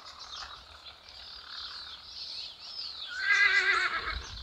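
A Marwari horse whinnying once near the end, a wavering call about a second long, over the chirping of small birds.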